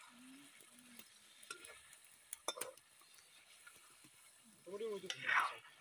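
A metal spatula stirring and scraping chicken curry in a metal kadai, with a few sharp clinks against the pan and a faint sizzle. A brief voice-like call sounds near the end.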